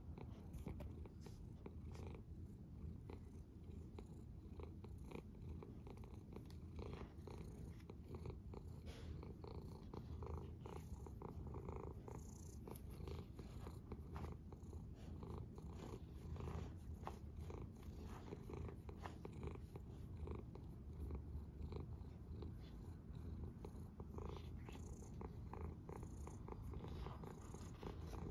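Domestic cat purring with a low, steady rumble while being stroked close to the microphone, with soft rustling of fur under the hand.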